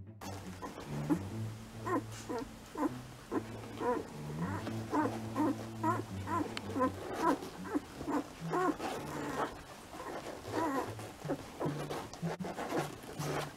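Days-old poodle puppies squeaking and whimpering in many short cries that rise and fall, one after another, as they jostle for a teat to nurse.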